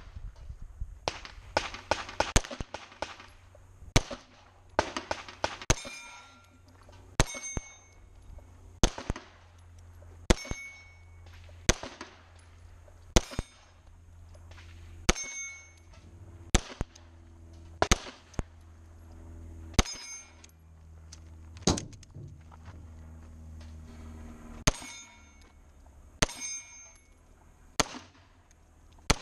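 Semi-automatic pistol fired in a long string of shots at steel plates. Many hits are followed by a short metallic ring from the plate. There is a quick cluster of shots about a second and a half in, then shots about a second apart.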